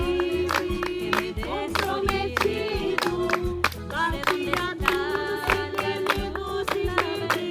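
A group of women singing a song together, clapping their hands in time with it.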